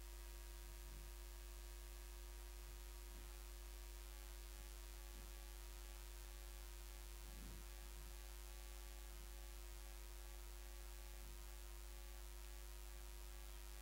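Faint steady low electrical hum, mains hum in the recording, with nothing else standing out.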